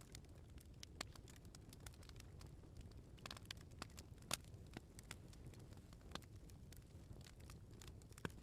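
Bonfire burning, its firewood giving off irregular sharp crackles and pops over a low steady rumble. The loudest pop comes about four seconds in.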